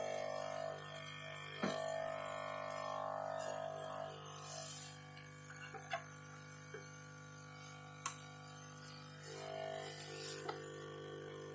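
Soft background music with a plucked-string sound, over which come a few short, sharp clicks from the plastic back cover of a fingerprint slap scanner being handled and fitted.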